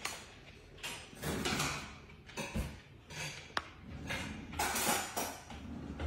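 Irregular taps, clicks and scuffles from an Indian ringneck parakeet on its wire cage, its beak and feet knocking on a tablet screen, the perch and the cage bars. Some single sharp clicks come between longer rustling scrapes.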